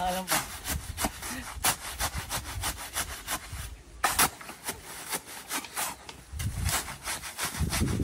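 Steel shovels scraping and scooping through a wet cement-and-sand mix on the ground, as it is mixed by hand: a quick, uneven run of gritty scrapes.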